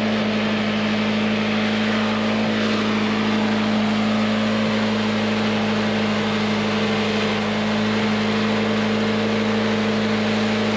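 Engine-driven garden mulcher (chipper-shredder) running at a steady speed, a constant low hum with its overtones over a noisy whirr.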